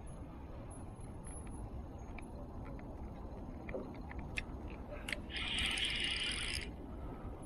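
A spinning reel whirring for about a second, a little past halfway, after a few scattered clicks, over a steady low rumble.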